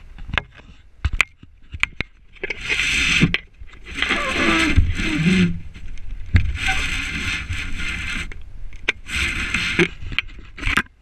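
Four bursts of rustling, wind-like noise on a body-worn action camera's microphone, with scattered sharp knocks and clicks between them.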